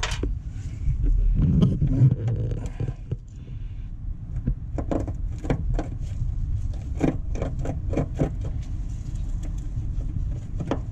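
Small irregular metallic clicks and taps of pliers working the thin horseshoe retaining clip off a front brake hose fitting, over a steady low rumble.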